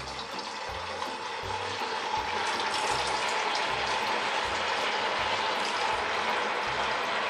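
Rice-flour medu vadas deep-frying in a kadhai of hot oil: a steady sizzle that grows louder over the first few seconds as a second vada is slid in, then holds.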